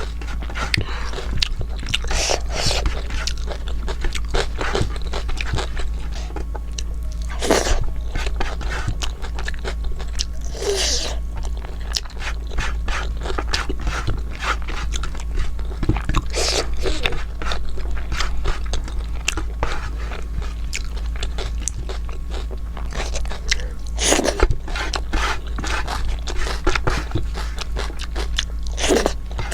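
Close-miked eating: a person chewing and crunching food, with irregular wet clicks and smacks, over a steady low hum.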